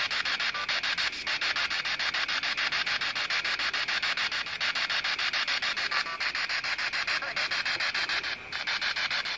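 Spirit box sweeping through radio stations: steady static chopped into short pulses many times a second. Near the end there is a brief fragment that the uploader captions as 'gilligan', taken for a possible spirit voice.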